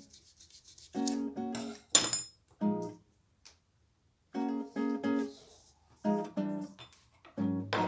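Background music played in short phrases of notes with brief pauses between them.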